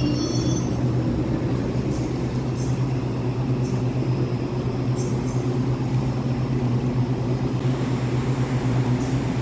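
Electric multiple-unit train standing at a station platform, its onboard equipment giving a steady low hum.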